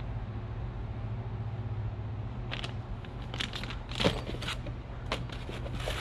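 Packaging being handled: a run of crinkles and clicks from a plastic bag and a cardboard box holding filter parts, starting about halfway and loudest about two-thirds in, over a steady low hum.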